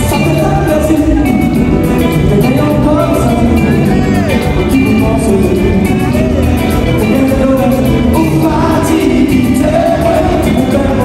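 Live band music with a lead singer: electric guitars, bass and drums playing steadily under gliding vocal lines.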